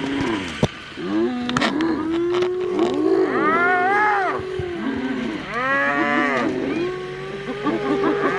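Spotted hyenas calling: drawn-out moaning calls held on one pitch, broken by arching yelps that swoop up and down, and quick wavering notes near the end.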